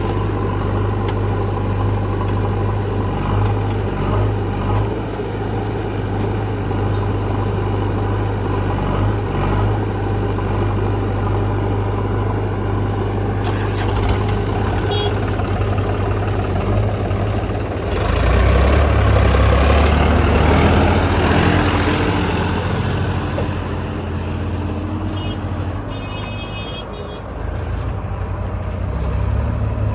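Heavy diesel engine running steadily. It gets louder for a few seconds about eighteen seconds in, and then a whine sounds that drops in pitch before fading.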